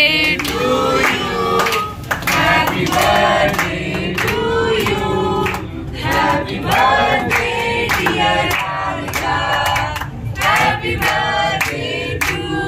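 A group of voices singing together, with hands clapping along throughout.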